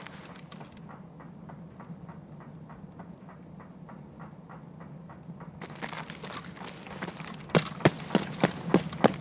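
Rhythmic clip-clop knocking, about three to four knocks a second. The knocks sound muffled and faint through the middle, then grow loud and clear about seven and a half seconds in.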